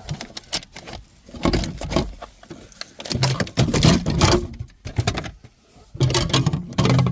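Jack kit being pulled out of its cargo-floor compartment: hard plastic and metal parts knocking, rattling and scraping in several bursts with short pauses between.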